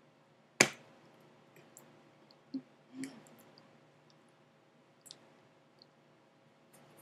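One sharp click about half a second in, then a few faint scattered ticks and two soft low knocks around the middle, over a faint steady hum.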